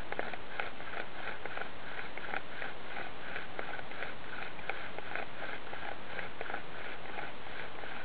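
Bow drill at work: a seasoned yellow pine spindle grinding into a yellow pine hearth board, driven back and forth by a bow with a saw palmetto cord. It makes a steady rasping rhythm of about two to three strokes a second, with small clicks.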